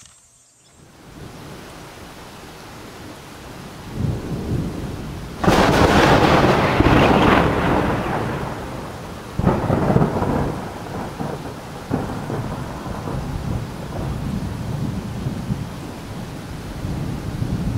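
Thunderstorm: steady rain with a sudden loud thunderclap about five seconds in that rumbles away over a few seconds, then two smaller claps, one about halfway and one a couple of seconds later.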